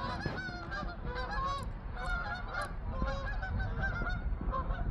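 A flock of geese flying overhead, many birds honking at once in short, overlapping calls.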